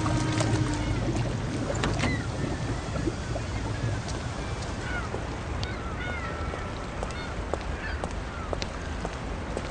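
Waterfront ambience: a steady wash of noise over a low rumble, louder for the first two seconds, with short squawking bird calls repeated throughout.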